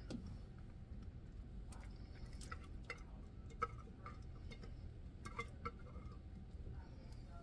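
Plastic spatula scraping and tapping inside a metal can as canned chicken is scooped into a cast iron skillet of broth: faint, scattered light clicks and taps over a low steady hum.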